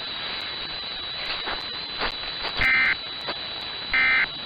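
Emergency Alert System SAME header data tones: short, loud, buzzy bursts, two in a row about a second and a half apart, the first just past halfway. They start an EAS required monthly test.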